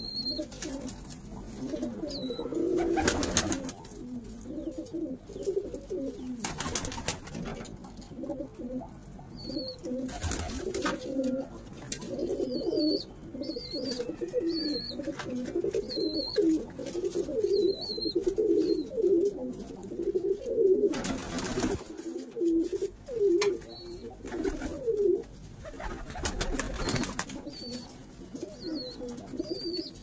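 Royal Teddy pigeons cooing continuously in low, rolling coos. A faint high chirp repeats about once a second in the background, and a few short rushing noises break in at intervals.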